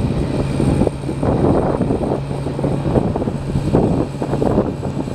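John Deere 8130 MFWD tractor's six-cylinder diesel engine running steadily with a low, even hum.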